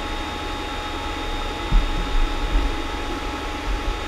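Creality CR-10S Pro 3D printer running near the end of a print: steady fan noise with a few constant whining tones, and a few low bumps near the middle.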